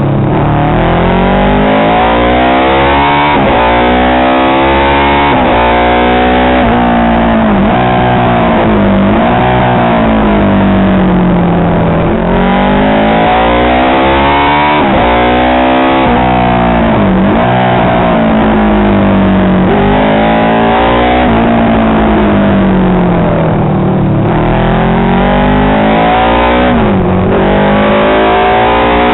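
Honda RC181 replica classic racing motorcycle's engine at full song on a lap. Its pitch climbs and drops again every few seconds as the bike accelerates, shifts and slows for corners, with wind rushing past.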